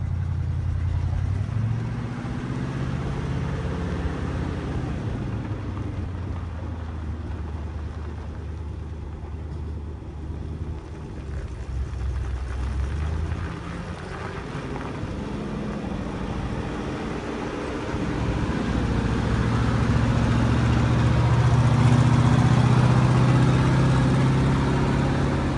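1965 International CO1600 cab-over truck's engine running as it drives past, its pitch dropping about halfway through and rising again, then louder in the last several seconds as the truck comes up close.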